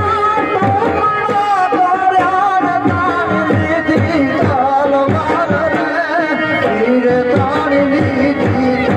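Live Indian folk-devotional music: a harmonium playing an ornamented melody over a steady, quick hand-drum rhythm.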